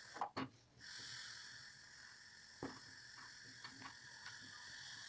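Faint stirring of simmering milk rice pudding in a stainless steel pot: a spoon gives a few soft clicks and knocks against the pot, with a faint hiss between them.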